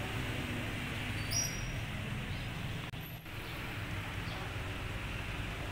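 Outdoor ambience: a steady low rumble with a few faint bird chirps about a second and a half in.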